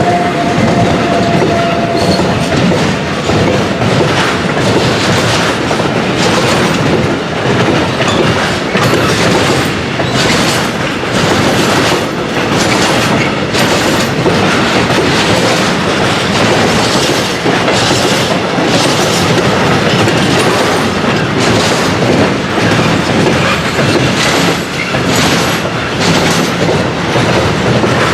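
Container flat wagons of a freight train rolling past at speed, with repeated clattering knocks and the strange rattling noises typical of these empty-ish intermodal wagons.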